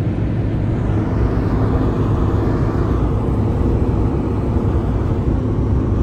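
Steady road and wind noise inside the cab of a pickup truck moving at highway speed.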